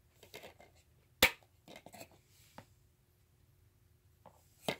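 Clear plastic disc case being handled and the disc taken off its centre hub: a single sharp click about a second in, a few lighter clicks and rustles, and another click near the end.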